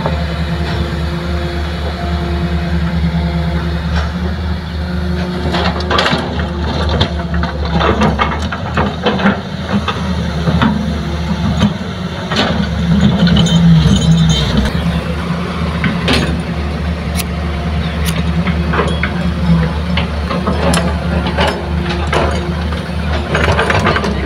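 Hitachi hydraulic excavator's diesel engine running steadily as it digs earth and loads a dump truck, with repeated clattering and knocking of soil and rocks in and from the bucket, busiest in the middle and again near the end.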